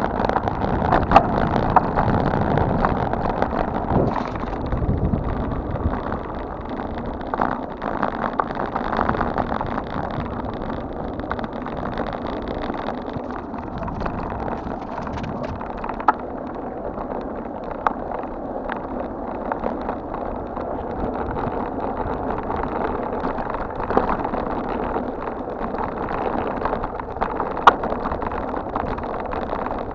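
Steady wind on a handlebar-mounted camera's microphone and the rumble of mountain bike tyres on a rough paved road, with a few sharp knocks from bumps.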